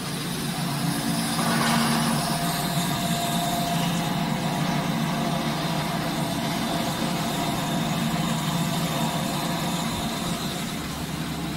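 Vacuum dispersing mixer's motor-driven equipment running: a steady machine hum with a thin whine above it, swelling briefly about a second in.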